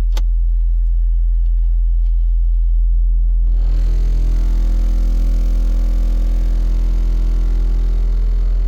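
MACH Audio subwoofers in a Ford Mustang playing a loud, steady 42 Hz test tone. There is a click just after the start, and about three and a half seconds in a buzzing rattle joins the tone and continues.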